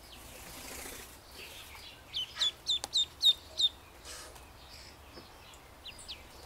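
Duckling peeping: a quick run of six loud, high, down-slurred peeps about two seconds in, then two fainter peeps near the end.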